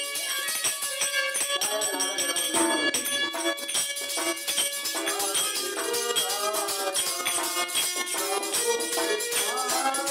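Harmonium playing a Hindi devotional song (bhent), holding steady reed notes, over fast, even jingling hand percussion, with a voice singing the melody.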